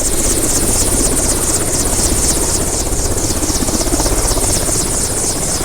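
Helicopter running, its rotor noise beating steadily at about five pulses a second.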